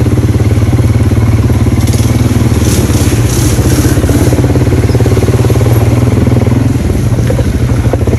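ATV engine running steadily under way, with an even, rapid pulsing throb. A brief hiss rises over it about two to four seconds in.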